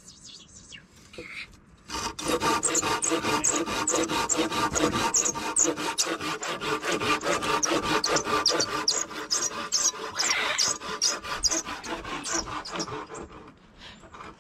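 Curved hand pruning saw cutting through a dead log: rapid back-and-forth strokes, about four a second. The sawing starts about two seconds in and tapers off near the end.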